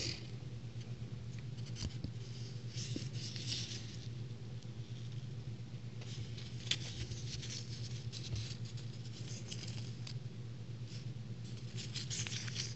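A paper sticker strip rustling and crinkling in the fingers as it is turned over and unrolled, in bouts with small clicks and taps, over a steady low hum.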